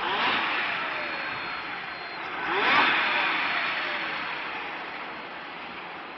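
Supercharged Jaguar XJR's 4.0-litre straight-six blipped twice, the engine note rising and then dying away each time. A thin, high, steady squeal sits over it early on: the annoying noise the owner is chasing, which seems to come with throttle.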